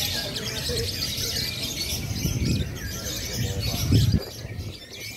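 Many caged lovebirds chirping and trilling at once in a dense, unbroken chatter, with a brief low rumble about four seconds in.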